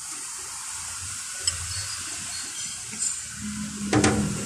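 Steady hiss with a couple of faint clicks of a metal spoon against a soup bowl, then a loud sudden sound near the end.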